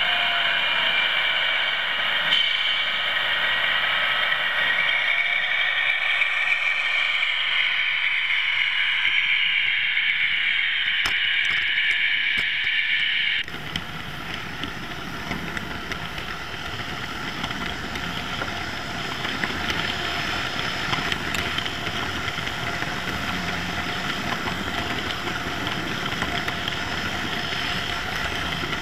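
OO-gauge model trains running on the track: a wavering, shifting whine with a hiss, then, after an abrupt cut about halfway, a slightly quieter, steadier mechanical hum with a rattle.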